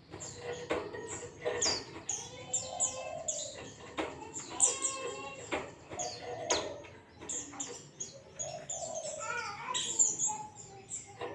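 Zosterops white-eye (pleci) singing a continuous, fast 'ngalas' song: a rapid stream of sharp chirps, quick downward-sweeping whistles and warbled phrases.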